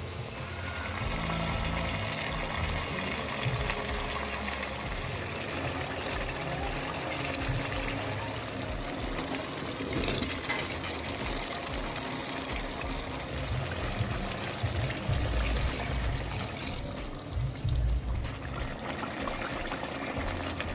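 Chicken and potato curry simmering in a pan, a steady bubbling and sizzling of the gravy.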